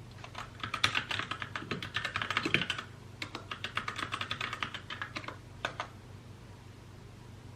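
Typing on a mechanical keyboard: two quick runs of rapid key clacks over the first five seconds, a last keystroke shortly after, then a pause with only a faint low hum.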